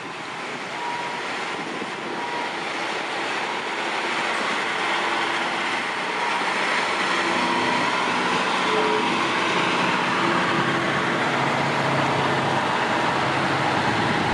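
KiHa 183 diesel railcar running on the line, its engine and wheel-on-rail rumble growing steadily louder.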